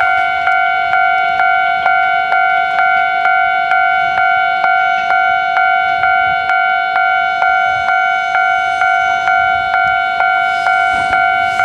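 Japanese railway level-crossing warning bell ringing in an even, unbroken rhythm of a little over two strokes a second, each stroke a ringing tone that fades before the next. This is the crossing alarm sounding while the barriers are down for an approaching or passing train.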